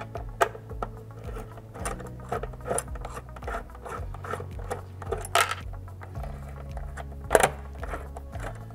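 Screwdriver turning out the small metal screws of a solenoid mounting plate: irregular small clicks and scrapes of the tip in the screw heads, with two sharper clicks about five and a half and seven and a half seconds in.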